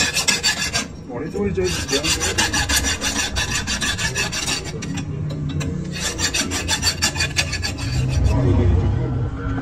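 Hand file rasping back and forth over the edge of a bent metal flat-bar ring, in quick repeated strokes with a brief pause about a second in and a longer one around five seconds in. Near the end the filing stops and a low steady hum takes over.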